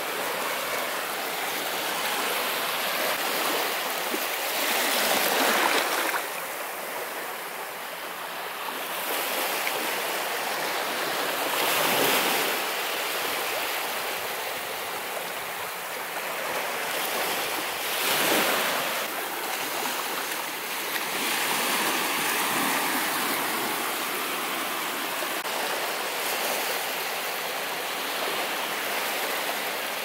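Small ocean waves breaking and washing up the shore: a continuous hiss of surf that swells into louder surges every six seconds or so.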